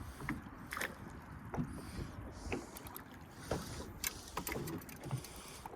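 Scattered light knocks and clicks from fishing gear being handled aboard a small boat, over a faint low rumble of wind and water.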